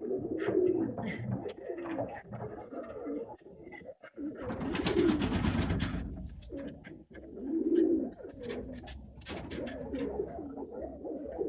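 Domestic pigeons cooing over and over in low, rolling calls. Two loud rustling bursts come about four and a half and nine seconds in.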